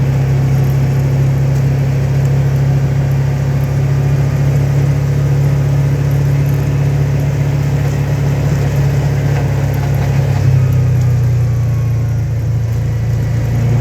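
An engine running steadily with a deep, even hum; its pitch shifts slightly about ten seconds in.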